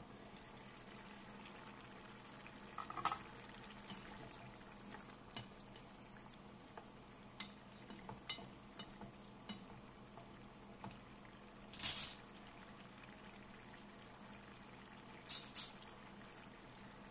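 A wooden spoon stirring a pot of lamb and green squash curry: quiet scraping with scattered knocks and clinks against the metal pot, over a faint simmer. There is a brief ringing clink about three seconds in, the loudest clatter about twelve seconds in, and a few more knocks near the end.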